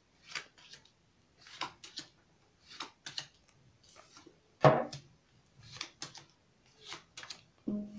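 Playing cards being dealt one at a time onto a table, each card giving a short slap or slide, about one a second, with one louder knock about halfway through. Piano music comes in right at the end.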